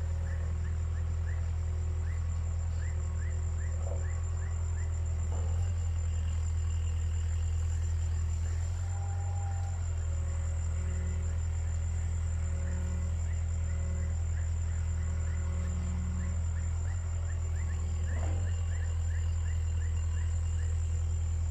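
Caterpillar 305.5E2 mini excavator's diesel engine running steadily with a low hum, with a few faint knocks as it works. Runs of quick high chirps sound over it.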